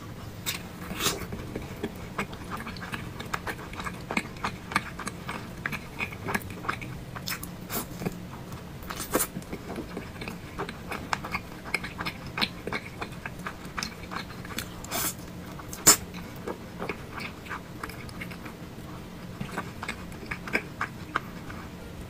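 Close-miked eating of thick noodles and meatballs: chewing and biting with a run of irregular wet mouth clicks and smacks, a few of them louder.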